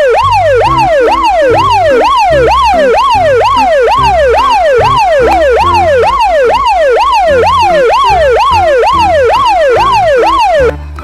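Loud electronic siren-like wail, the pitch sweeping downward and jumping back up about twice a second, over a steady bass beat of added music. It cuts off suddenly near the end.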